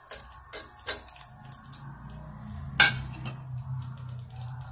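A steel skimmer ladle clinks and scrapes against an aluminium pressure cooker as raw mutton pieces drop into the masala and are stirred in. There are scattered light knocks, with one louder clank a little past the middle, over a low steady hum.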